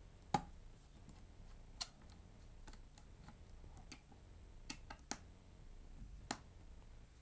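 Quiet room tone with a handful of sharp, irregular clicks and taps, the loudest about half a second in.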